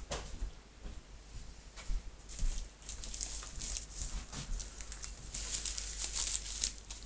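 Rustling and crinkling with a quick run of short scrapes and clicks, sparse at first and much busier from about two seconds in.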